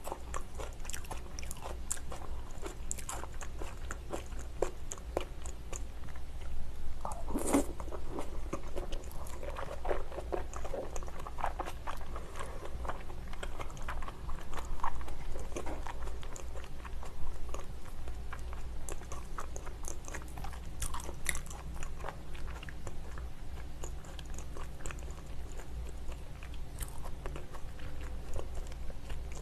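A person chewing and biting raw salmon sashimi: a run of many small mouth clicks, with one louder mouth sound about seven and a half seconds in.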